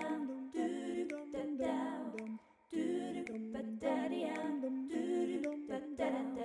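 A cappella vocal jingle: a voice singing a short melody of held notes with no instruments, in phrases with brief breaks between them.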